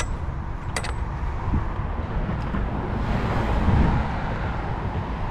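Street traffic over a steady low rumble, with a car passing about three to four seconds in. There are two sharp clicks in the first second.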